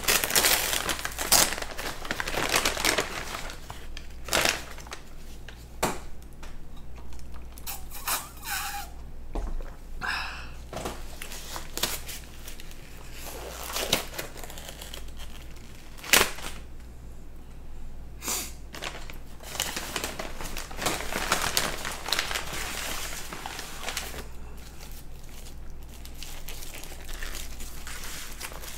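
Close-miked eating of fast food: chewing and handling food, heard as irregular crackling noise and sharp clicks, with a couple of short pitched sounds about eight to ten seconds in.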